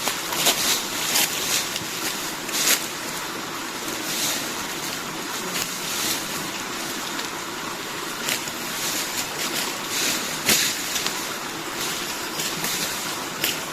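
Steady rush of flowing river or stream water, with irregular short sharp splashes or clicks over it.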